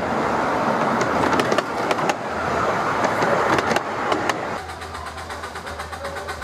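Miniature railway passenger carriages rolling past on the track, the wheels rumbling with scattered sharp clicks. About four and a half seconds in this gives way to a quieter, steady sound with a fast regular beat from a small coal-fired steam locomotive approaching.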